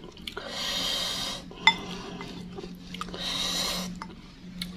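Wooden fork and spoon working a meatball in broth in a ceramic bowl, with one sharp clink against the bowl about a second and a half in and a few lighter taps, between two long breaths out.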